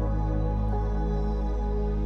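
Background music: slow ambient chords held over a deep bass drone, the chord shifting a little under a second in.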